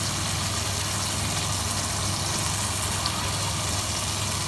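Chicken masala frying in a nonstick wok with a steady sizzle while yogurt is poured in, over a steady low hum.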